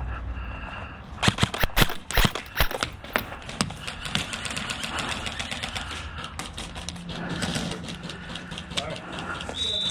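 Airsoft guns firing: a string of sharp, irregular shots about a second in, followed by quicker, fainter clicks of shots for several seconds.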